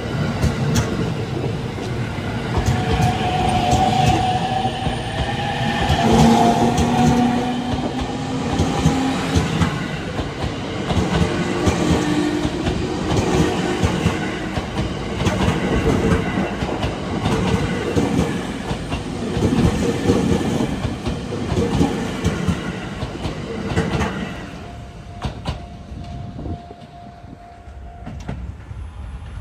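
Sotetsu electric commuter trains passing close by, wheels clacking over the rails, with tones that rise and fall in pitch early on; the noise dies down after about 24 seconds as the passing ends.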